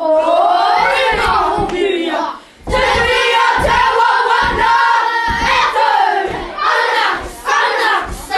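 Group of schoolchildren chanting a Māori haka in loud, shouted unison over regular low thumps of stamping and slapping. The chant breaks off briefly about two and a half seconds in.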